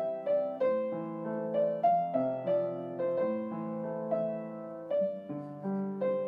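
Background piano music: a melody of single notes, about three a second, over lower held chords.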